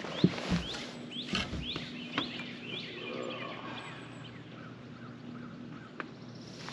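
A bird chirping in a run of short rising notes, over a faint steady hum, with a few knocks and clicks in the first couple of seconds.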